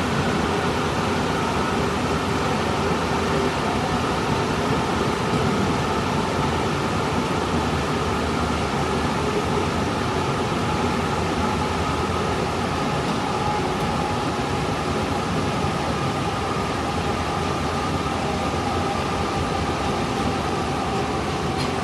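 Subway train running: a steady rumble and rush of noise with a faint steady whine over it.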